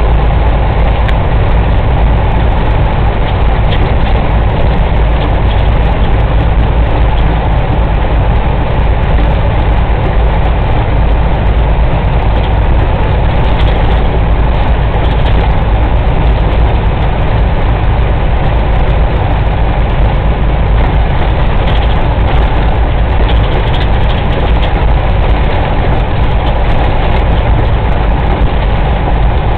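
Heavy truck's diesel engine and road noise heard from inside the cab while cruising at highway speed: a steady, loud, low rumble that does not change.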